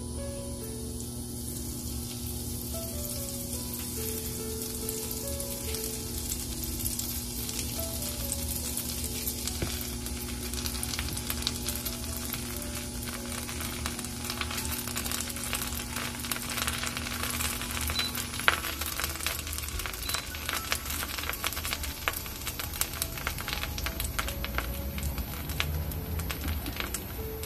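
Bread slices toasting in butter in a nonstick frying pan: a steady crackling sizzle that grows denser after the first few seconds.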